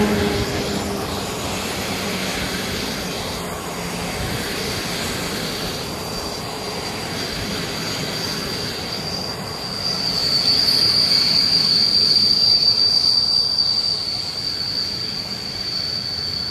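PKP Intercity passenger coaches rolling past as the train slows into a station, with steady rumbling running noise. A high, steady squeal rises and is loudest from about ten seconds in, then fades near the end.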